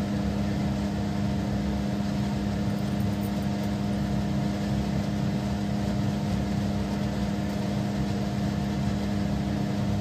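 Steady motor hum, a low drone with a rushing noise underneath, like a running fan.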